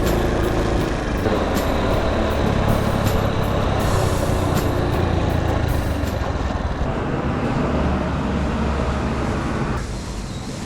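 Steady rumble and road noise of motor vehicles, dropping in level near the end.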